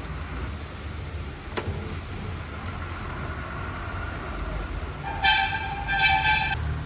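A vehicle horn sounds in two short blasts, one right after the other, near the end, over a steady low rumble. A single sharp click comes earlier.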